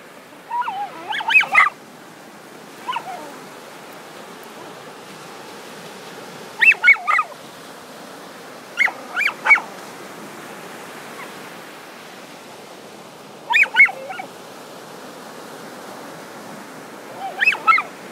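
Excited dog giving short bursts of high yips while digging, about six bursts a few seconds apart, over a steady background hiss.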